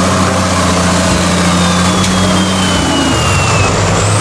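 Car engine running loudly with a steady low hum and a faint whine that falls slowly in pitch.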